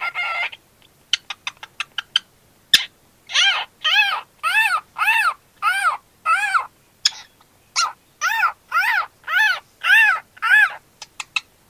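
Cockatiel calling: a few short chirps and clicks, then from about three seconds in a run of repeated identical calls, about two a second, each rising and then falling in pitch.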